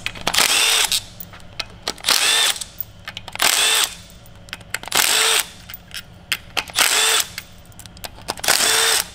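Milwaukee Fuel cordless driver with a socket extension backing out timing-chain-cover bolts on an Audi 4.2 V8, in six short runs of about half a second each. Its motor pitch rises and dips within each run, and small clicks of the socket and bolts come between the runs.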